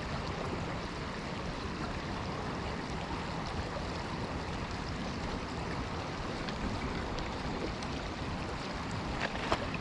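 Fast-flowing river current running over its bed: a steady rushing hiss of moving water. A few sharp clicks come near the end.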